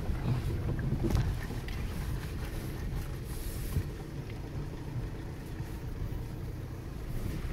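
Škoda Yeti driving slowly over a rough dirt forest track, heard from inside the cabin: a steady low rumble of engine and tyres, with a sharp knock about a second in.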